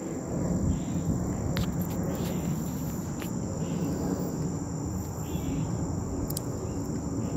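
Steady high-pitched insect chirring in summer trees, over a continuous low rumble, with a few short clicks.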